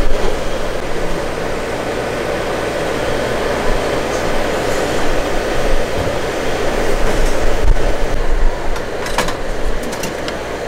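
Steady, fairly loud background noise of a street-food stall: a low rumbling hum with hiss, and a few light clicks about nine seconds in.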